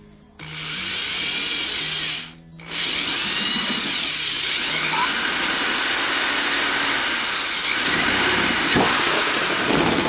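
Power drill running an 11/16 spade bit through a plastic bumper, boring a hole for a quick-release latch. The drill stops briefly about two seconds in, then runs steadily until the end.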